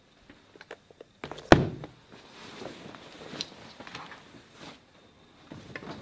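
A loud thump about a second and a half in, then cloth rustling as a jacket is pulled off, with small clicks and another knock near the end.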